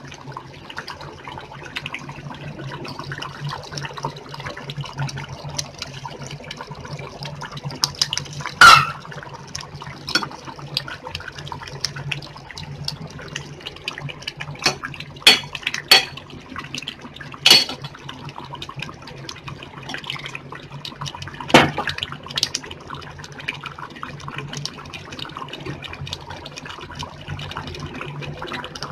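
Fish kulambu (tamarind curry) bubbling at the boil in a stainless steel pot over a steady low hum, with several sharp metallic clinks of a spoon against the pot, the loudest about nine seconds in.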